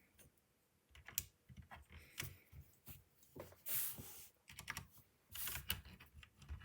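Plastic keycaps clicking and clacking as they are pressed onto the switches of a Ducky mechanical keyboard with brown switches, in scattered irregular clicks, with a brief rustle about halfway through.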